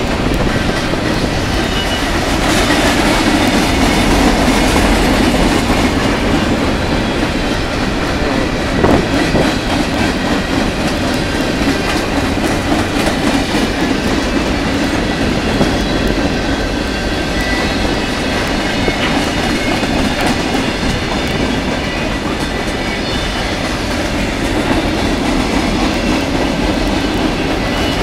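Freight train of covered hopper and tank cars rolling past close by: a steady, loud rumble of steel wheels on the rails with clickety-clack.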